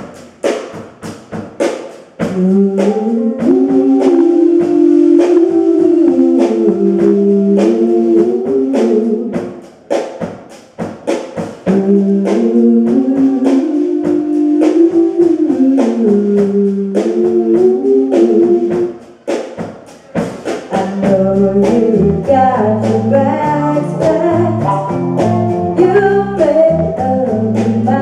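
Live blues song: a voice singing two phrases over a steadily strummed guitar, with a bass line and fuller accompaniment coming in about two-thirds of the way through.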